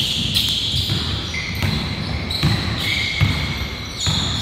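Basketball bouncing on a hardwood gym floor as players run, with sneakers squeaking on the boards in several short high squeals.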